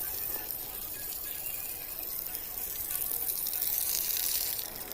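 Steady rushing hiss of water gushing, swelling a little about four seconds in.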